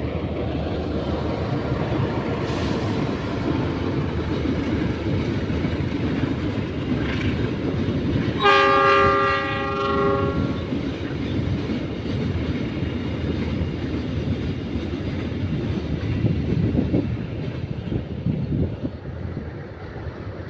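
A train passing with a steady rumble and clatter of wheels on the rails. About eight seconds in, the horn sounds once for about two seconds, the loudest part.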